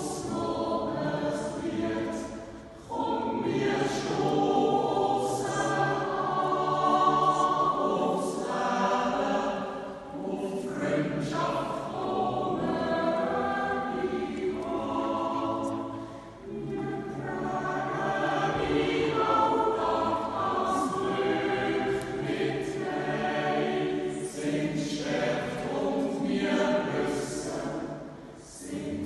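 A Swiss yodel club choir of men's and women's voices singing a cappella in sustained phrases, with brief breaks between phrases about 3, 10 and 16 seconds in.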